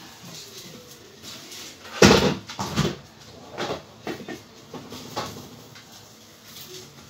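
Knocks and clatter of household things being handled by someone moving about a kitchen: a loud cluster of knocks about two seconds in, then scattered lighter knocks and clicks.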